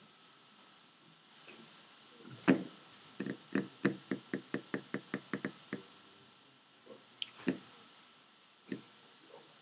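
A quick run of about a dozen sharp taps or knocks, about four a second, the first the loudest, followed by three scattered taps near the end.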